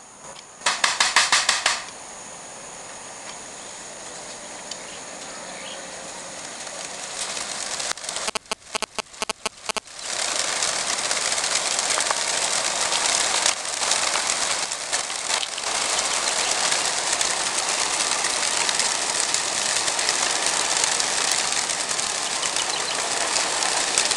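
Hundreds of racing pigeons taking off together from the opened crates of a transport truck: a dense, loud rush of flapping wings that starts about ten seconds in and carries on. Before it there is a short loud rattle about a second in and a rapid run of knocks just before the wings start.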